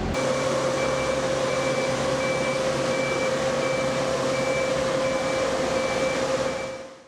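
Machinery running with a steady whine under a rushing noise, while a short high beep repeats about every two-thirds of a second. The sound fades out near the end.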